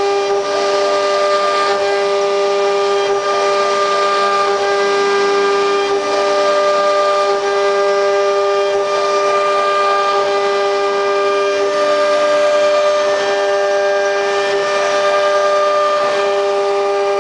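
CNC router spindle whining steadily at high speed while cutting, with a noisy hiss beneath and fainter tones that come and go every few seconds.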